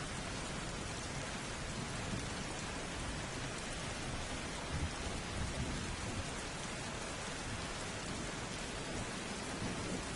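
Steady, heavy rain falling, with a low thunder rumble underneath that swells a little about five seconds in.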